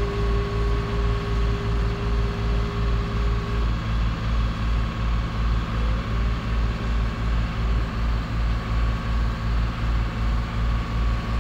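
Inboard engine of a wooden fishing boat running slowly under way, a steady low chugging at about three to four beats a second.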